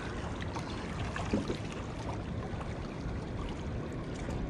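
Steady wash of calm sea water lapping against the rocks of a breakwater, with a brief faint tone about a second and a half in.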